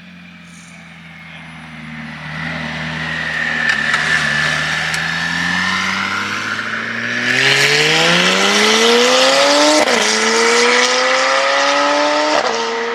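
A high-performance car engine accelerating hard past, its pitch rising steeply, dropping with an upshift near the middle and climbing again, with a second shift shortly before it fades away.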